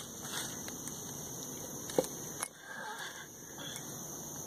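Handling noise from a handheld phone being moved: a couple of brief clicks, about two seconds in and again just after, over a steady background hiss.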